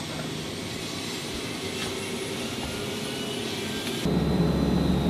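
Twin turboprop engines of a C-145A Combat Coyote heard from inside the cabin in flight, a steady drone. About four seconds in it changes abruptly to a louder, lower drone.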